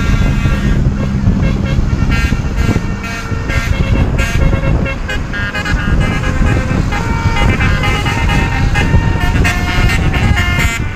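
Telolet multi-tone horn on a decorated Indonesian basuri vehicle sounding a tune in stepped notes, over a constant low rumble.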